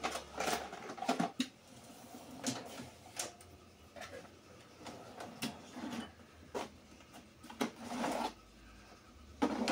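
Steel toolbox drawers on their slides being pushed shut and pulled open, with scattered clicks and knocks, and a longer sliding run about eight seconds in as a drawer of plastic tool cases is pulled out.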